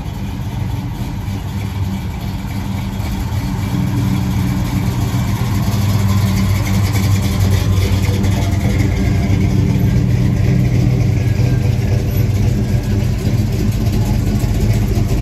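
Car engine running steadily with a low-pitched exhaust note. It grows gradually louder over the first six or seven seconds, then holds steady until it cuts off suddenly at the end.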